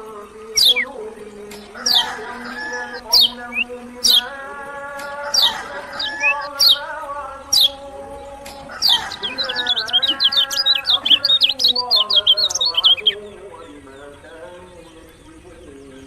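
Lemon-bellied white-eye (kecial kuning) singing: sharp, high chirps that sweep downward about once a second, then a fast twittering run about nine to thirteen seconds in. Underneath is a slow, chanted Arabic recitation by a man's voice.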